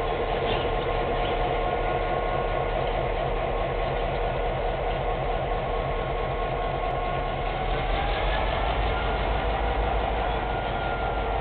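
Diesel locomotive engine running steadily, its pitch rising slightly about eight seconds in.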